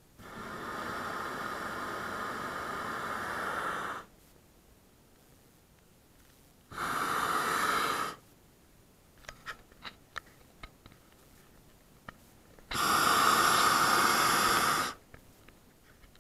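Hot air balloon's propane burner firing in three blasts, a long one of about four seconds, a short one in the middle and another of about two seconds near the end, with a few faint clicks in the quiet between.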